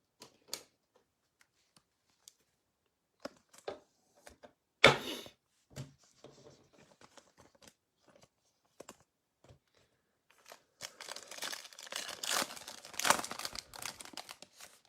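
Plastic wrapper of a basketball trading card pack being handled and torn open. Scattered light clicks and one sharp snap about five seconds in, then several seconds of dense crinkling and tearing near the end.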